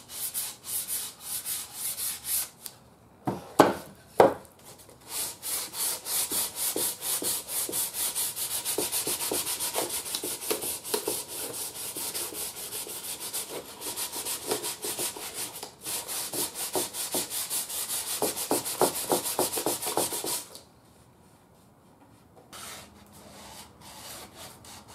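Sandpaper scuffing the thick, crazed shellac finish of a wooden radio cabinet in quick back-and-forth strokes. It roughens only the top layer, to break the glaze and smooth out the fine cracks. Two sharp knocks come about three and four seconds in, and the sanding stops about twenty seconds in.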